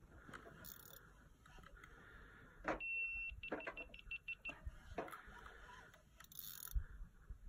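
Electronic bite alarm on a fishing rod pod: one short held tone about three seconds in, then a rapid run of short beeps for about a second as line is drawn over the sensor, among a few handling knocks of the rod and reel.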